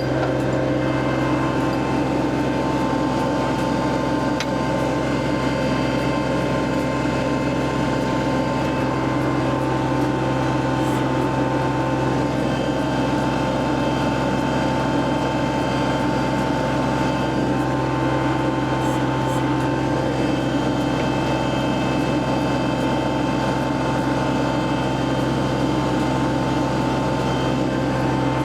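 Kubota compact tractor's diesel engine running at a steady speed, with a constant hum and a steady higher tone over it.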